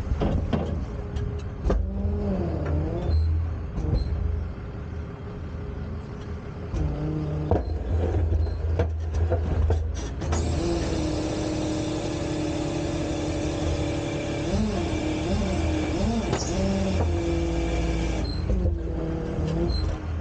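Wheel-lift tow truck's engine running as the truck backs up to a car. About ten seconds in, the hydraulic wheel-lift starts working with a steady whine and hiss that lasts about eight seconds, while the engine revs up and down.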